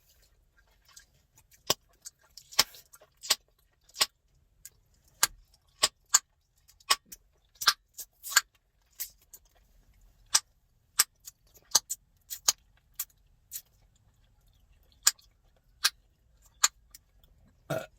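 Chewing gum being cracked and popped in the mouth: an irregular series of sharp snaps, one or two a second.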